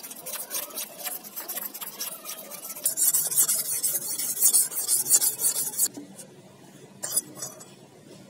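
Steel knife blade scraping back and forth on a combination sharpening stone in quick, even strokes. From about three seconds in the strokes grow louder and harsher, and they stop about six seconds in.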